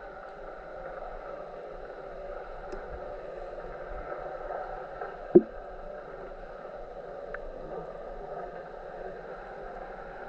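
Water sloshing and lapping around a paddled kayak, a steady wash, with one sharp knock about halfway through.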